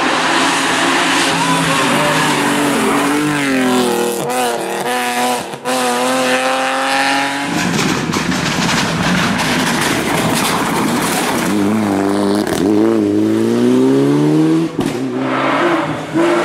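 Rally cars racing up a hill-climb stage at full throttle. The engine pitch climbs through each gear and drops sharply at the upshifts, with a stretch of rougher noise in the middle.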